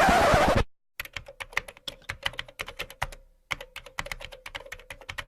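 Computer keyboard typing: rapid keystrokes clattering for about four seconds with a short pause midway. Just before it, a short loud burst of noise.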